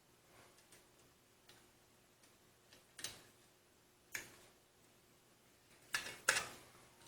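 Scattered light clicks and taps of an SSD and its drive tray being handled, the loudest pair of knocks a little before the end.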